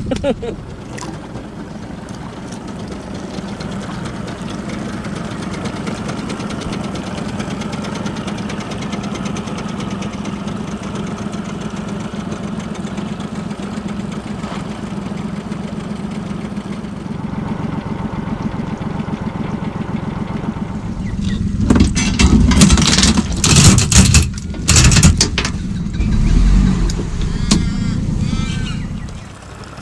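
A small runabout boat's outboard motor running steadily at low revs. About twenty seconds in, a few seconds of loud irregular knocks and rushing noise cover it, and the motor fades out near the end.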